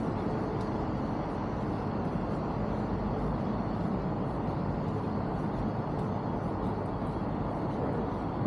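Steady outdoor city background noise: an even low rumble of traffic-like sound with no distinct events.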